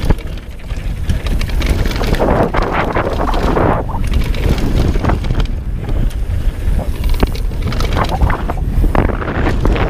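Wind buffeting the microphone of a Knolly Delirium downhill mountain bike's rider at speed, over the hiss and crunch of its tyres on a dirt and gravel trail. Frequent knocks and rattles from the bike as it rolls over bumps and jumps.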